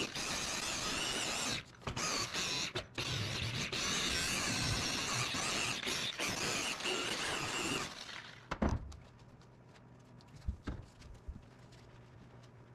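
Electric machine polisher with a foam pad running against car paint, dipping briefly twice, then switched off about eight seconds in. A single thump follows shortly after.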